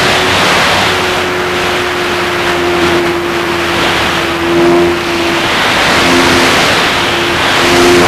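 Radio-controlled model P-51's motor and propeller droning, with heavy wind rush over the onboard camera's microphone. The drone's pitch shifts a little now and then.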